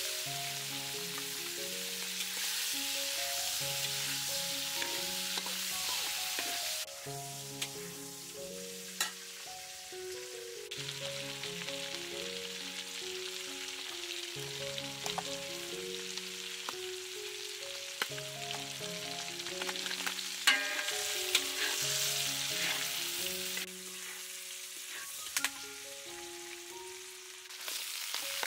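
Oil sizzling in a hot wok as chicken pieces and garlic stir-fry, with a metal spatula scraping and clicking against the pan now and then. The sizzle steps louder or quieter a few times, and a soft background melody plays underneath.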